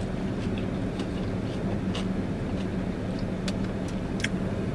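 Steady low hum inside a car's cabin from the idling engine, with a few faint clicks from chewing.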